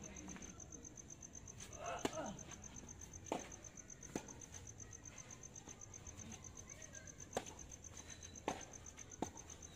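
Tennis balls popping off rackets and the court in a doubles rally, about six sharp hits spaced a second or so apart. Crickets chirp steadily underneath.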